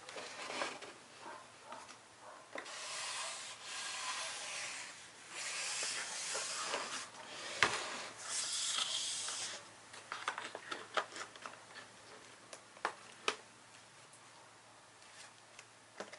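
Hands handling a laptop's cardboard packaging: a white protective sheet rubbing and rustling against the cardboard in three long stretches, with a sharp knock about halfway through and a scatter of light taps and clicks after it.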